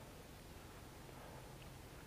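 Near silence: a faint, steady hiss with a low hum underneath.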